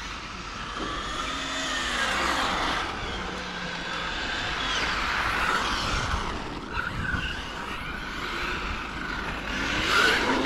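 Radio-controlled model car running on a dirt track, its motor's high pitch rising and falling again and again as it speeds up and slows down.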